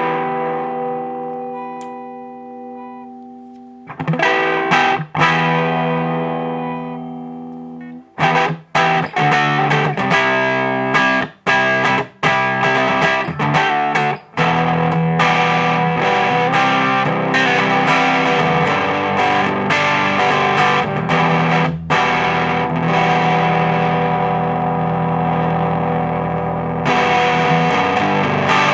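Electric guitar played through a home-built Distortion Plus pedal clipped with three germanium diodes. Two distorted chords are each left to ring and fade, then from about eight seconds in comes a fast, chugging riff that plays on without a break.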